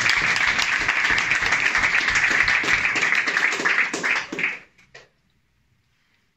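Audience applauding, dense clapping that dies away about four and a half seconds in, leaving near silence.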